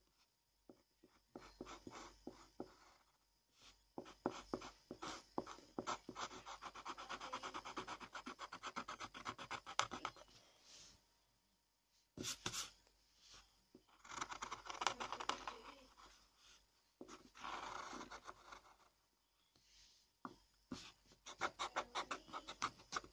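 Pencil scratching on paper in runs of quick short strokes, with pauses between them. Near the end, a pencil's rubber eraser rubs back and forth on the paper.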